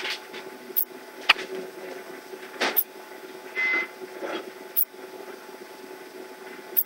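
A baby hiccuping: about seven short, sudden hiccups at uneven gaps of one to two seconds, one of them a little longer with a thin high note a little past the middle, over a faint steady hum.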